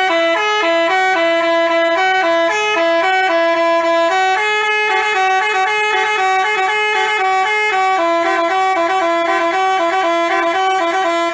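Basuri telolet bus horn playing a melody of short stepping notes, several horn tones sounding together. It is loud and cuts off abruptly near the end.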